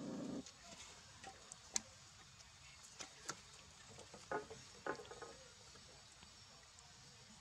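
Puppies suckling from their mother: faint scattered wet smacking and clicking, with a short louder burst right at the start and a couple of brief squeaky sounds about four and five seconds in.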